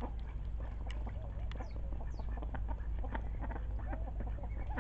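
Domestic ducks giving short, soft calls amid many small clicks and splashes in shallow water, over a steady low hum.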